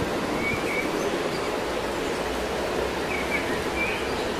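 Steady rushing noise of running water, with a few short bird chirps about half a second in and again near the end.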